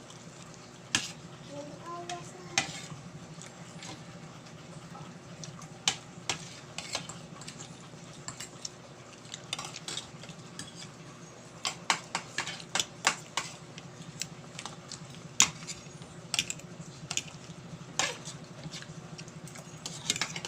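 Close-up mukbang eating sounds: mouth smacks and chewing, with light taps of food and hand against a plate, heard as scattered sharp clicks that come thickest about twelve seconds in. A steady low hum sits underneath.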